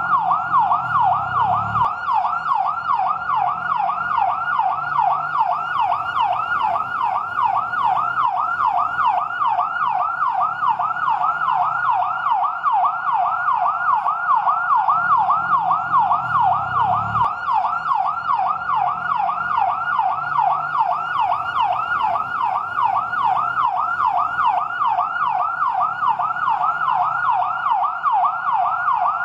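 Fire truck yelp siren, cycling rapidly up and down in pitch several times a second without a break.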